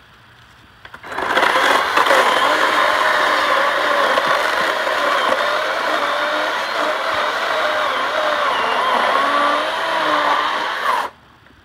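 14-inch electric chainsaw running while cutting into a tree stump, its motor pitch wavering as the load changes. It starts about a second in and cuts off sharply about a second before the end.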